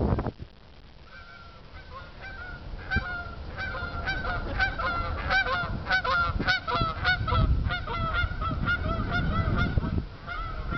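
Canada geese flying overhead, honking over and over. The calls start about a second in, come thickest midway and thin out toward the end.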